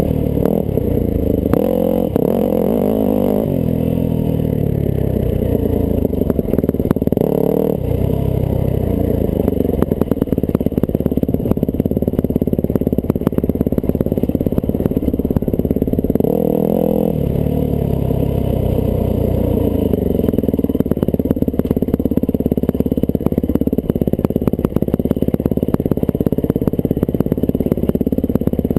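1998 Yamaha YZ400F four-stroke single-cylinder dirt bike engine under way, its revs rising and falling with the throttle. From about ten seconds in, dense rattling and clattering as the bike crosses rough, rocky ground.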